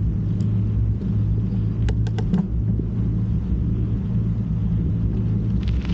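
Motorcycle engine running steadily, a low drone, with a few light clicks about two seconds in.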